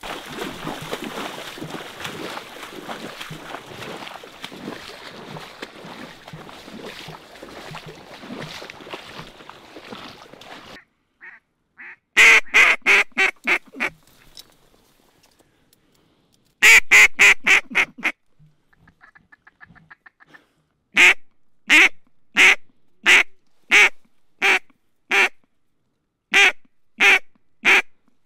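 About ten seconds of rustling noise, then a mallard duck call blown by hand: three strings of loud, evenly spaced quacks, the last a long run of about a dozen.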